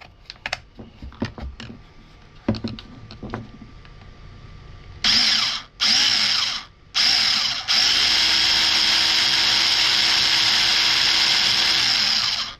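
Battery-powered 21-volt mini chainsaw's electric motor running with the chain driven, a steady high whine: first a few handling clicks and knocks, then about five seconds in three short bursts on the trigger, followed by one long run of about four and a half seconds. The chain now turns with the motor after a repair to its drive gear.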